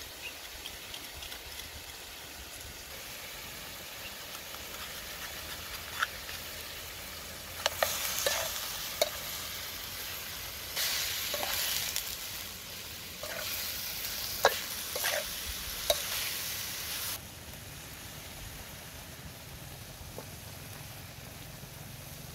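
Gizzards frying in a metal wok, sizzling, while a wooden spatula stirs them. Between about 8 and 17 seconds in there are three louder stretches of stirring, with sharp knocks and scrapes of the spatula against the pan.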